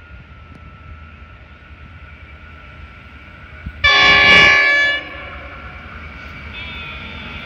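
NR-class diesel locomotive sounding its horn once, a loud chord of several tones lasting about a second, about four seconds in. Under it runs a low rumble from the approaching train that grows louder toward the end.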